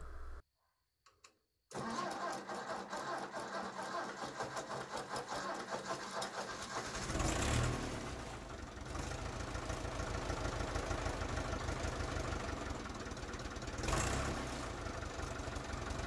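Ford 601 Workmaster diesel tractor engine being started on its starter and then running steadily, with an even pulsing beat. It surges louder briefly about seven seconds in and again about fourteen seconds in.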